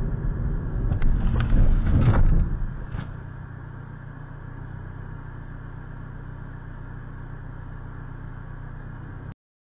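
Car's road and engine noise picked up by a dashcam's in-cabin microphone: a loud low rumble with a few knocks for about the first three seconds, then a quieter steady hum once the car comes to a stop. The sound cuts off suddenly near the end.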